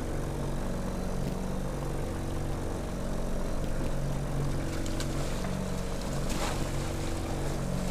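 Boat engine running steadily at trolling speed, a low even hum. A couple of short clicks past the middle.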